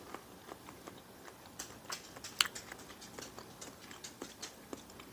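A person chewing a mouthful of cooked squash and string beans, with soft, scattered mouth clicks and smacks and one sharper click about two and a half seconds in.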